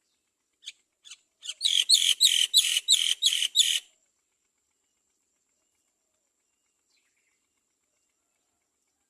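Myna calling in a rapid run of harsh chirps, about four a second, lasting about two seconds. Two faint chirps come first.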